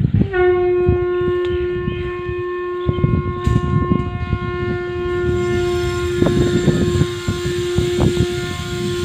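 A loud, steady, horn-like tone at one pitch starts abruptly just after the start and holds without a break throughout, over low knocks and rustles.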